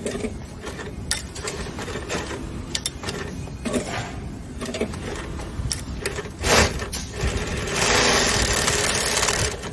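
Double-needle lockstitch industrial sewing machine running, with scattered clicks and knocks over a steady hum, then a louder stretch of steady sewing lasting about two seconds near the end.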